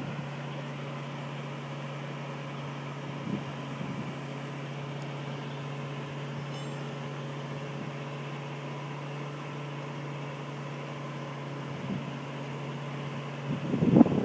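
Crane engine running steadily with an even, low hum. A burst of louder, uneven noise comes in near the end.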